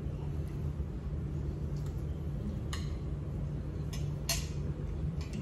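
Metal forks and a spoon clinking and scraping against ceramic plates a few times, the loudest clink about four seconds in, over a steady low hum.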